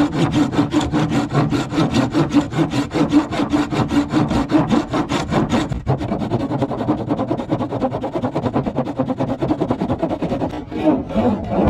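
Hand saw cutting a cheap wooden board in quick, even back-and-forth strokes, the strokes growing lighter about halfway through.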